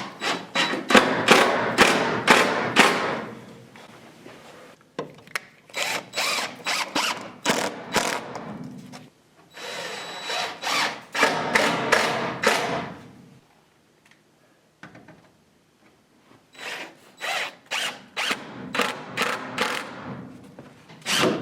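DeWalt 20V MAX cordless impact driver driving Rock-On screws through cement board into the frame. It comes in four spells of rapid clattering, with short pauses between screws.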